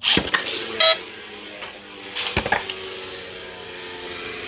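Beyblades launched with a sudden rip, then 3D-printed Beyblade Burst tops spinning in a plastic stadium with a steady whir. Sharp clashing hits come about a second in and again twice around two and a half seconds.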